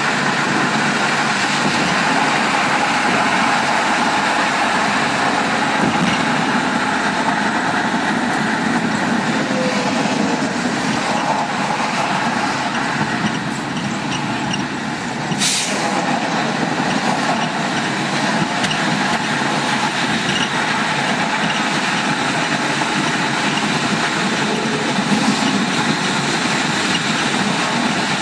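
Steady road noise of a car driving at highway speed, heard from inside the cabin: tyres on the pavement and wind. A brief burst of hissing noise comes about halfway through.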